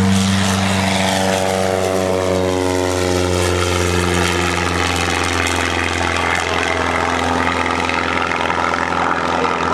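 Great Lakes Sport biplane's piston engine and propeller flying past. The propeller note drops in pitch over the first few seconds as it goes by, then carries on steadily.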